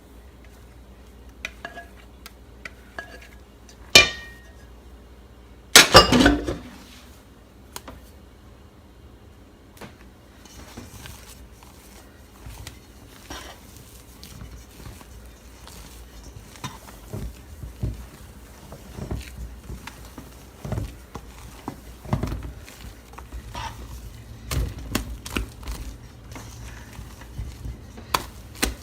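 A utensil clinking and scraping against a mixing bowl as batter is stirred and folded, with two loud knocks about four and six seconds in, then a run of irregular lighter clinks.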